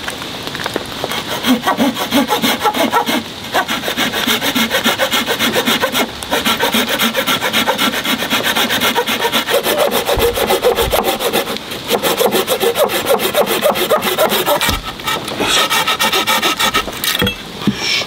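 A folding hand saw cutting through a branch with quick back-and-forth strokes, stopping briefly every few seconds.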